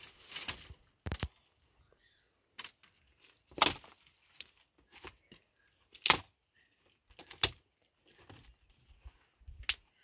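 Dry branches snapped by hand for firewood: a brief rustle of twigs, then a series of separate sharp cracks at uneven intervals, the loudest a little under four seconds in and about six seconds in.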